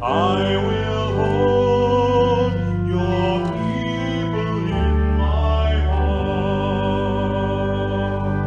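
Slow church music of held chords that change every second or two, with singing over them and a deep bass note coming in about halfway through.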